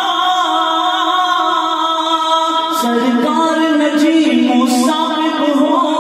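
A man singing an Urdu manqabat, a Sufi devotional song, holding long drawn-out notes; the melody steps down in pitch about halfway through.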